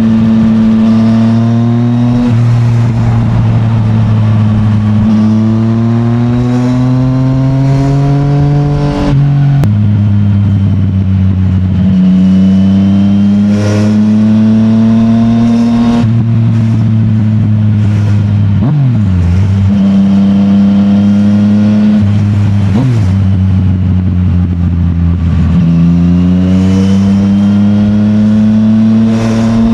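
Yamaha MT-09's three-cylinder engine through an Akrapovic full titanium exhaust, accelerating through the gears. The pitch climbs in each gear and drops at each upshift, about every six to seven seconds. Twice in the middle the revs dip sharply and come straight back.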